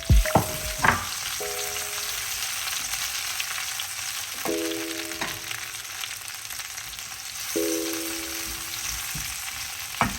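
Tomato and red pepper frying in hot oil in a pan: a steady sizzling hiss, with a few sharp knocks of a utensil on the pan near the start and again near the end.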